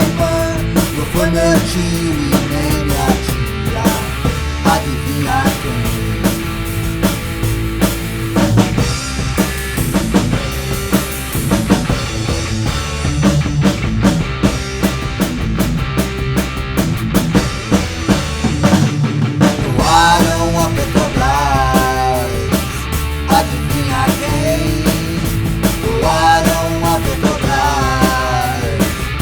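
Rock music with a drum kit keeping a steady beat under a full band. A wavering, pitch-bending melodic line comes in about two-thirds of the way through and again near the end.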